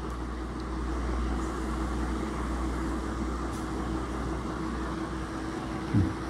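Steady room background noise: an even hiss with a low hum and a thin steady tone under it, and a brief voice sound near the end.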